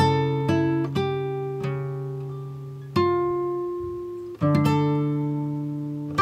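Background music: an acoustic guitar playing slow plucked notes and chords, each ringing out and fading before the next.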